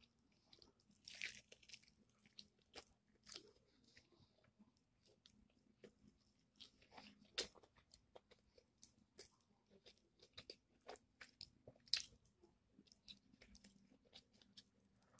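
Close-up eating sounds of a man biting and chewing fried chicken: quiet, irregular crisp crunches of the fried crust and wet mouth clicks, with a few louder crunching bites.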